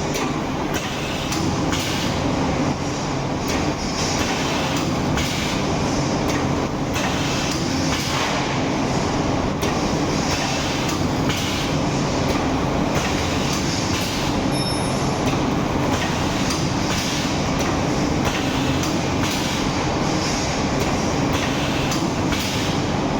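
Side-sealer shrink-film sealing and cutting machine running: a steady mechanical rumble with a hiss that rises and falls at a regular beat as the machine cycles.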